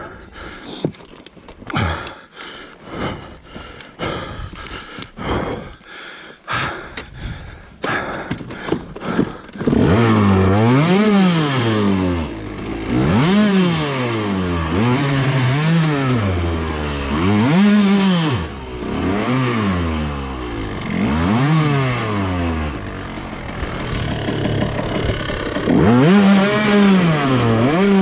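Dry branches and brush cracking and scraping against a dirt bike for about ten seconds. Then the dirt bike's engine revs up and down over and over, as the rider tries to power the bike free with its front wheel jammed in the brush.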